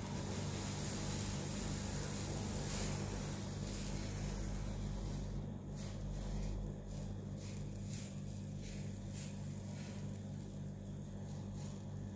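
Chocolate pancake batter sizzling softly as it is ladled into a hot non-stick pan over a medium-low gas flame. The hiss fades after about five seconds, and a few faint clicks follow, over a steady low hum.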